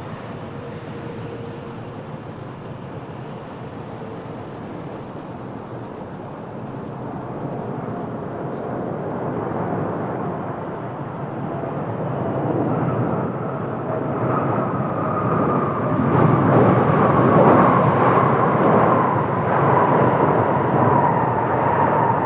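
Airbus A380-861 jetliner on landing approach, its four Engine Alliance GP7200 turbofans running. The jet noise grows steadily louder as it nears, with a whining tone that slowly falls in pitch in the second half.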